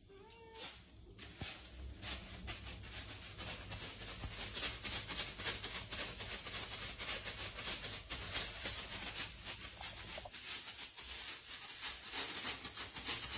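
Thin plastic crinkling and rustling in a dense, continuous stream of crackles as a cat walks and kicks with a clear plastic bag stuck on its hind paw.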